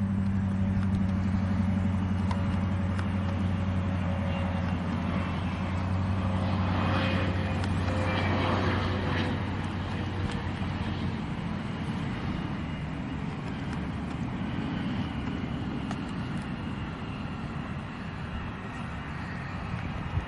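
Aircraft engine noise: a steady low hum with a faint, slowly falling whine over the first ten seconds or so, giving way to a broad, even rush.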